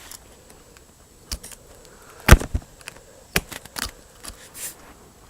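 Scattered sharp clicks and knocks of a metal detector's plastic casing and parts being handled and pried apart, the loudest knock a little over two seconds in.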